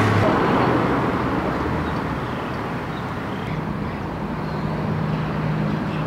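Street traffic: motor vehicles running and passing on a town road, a steady road-noise rumble with low engine hum, easing off in the middle and building again near the end.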